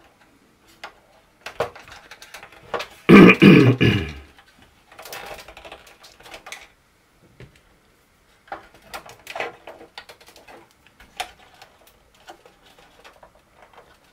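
Small clicks and taps of plastic model-hull parts, screws and a screwdriver being handled and fitted while screw holes are lined up, coming thick and fast in the second half. About three seconds in, a short loud vocal sound, like a grunt of effort, is the loudest thing.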